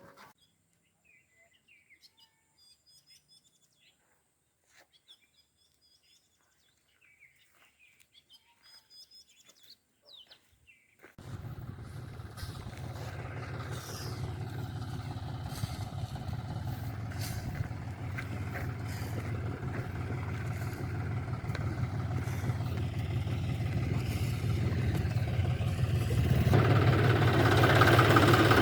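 Faint bird chirps over near quiet, then about eleven seconds in a motor engine comes in abruptly and runs steadily, growing louder and stepping up again near the end.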